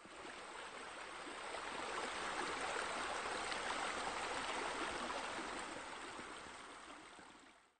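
Steady rushing of running water, swelling over the first couple of seconds and fading out near the end.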